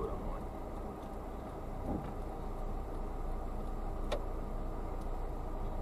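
Steady engine and road noise of a car driving slowly, heard from inside its cabin, with a faint click about four seconds in.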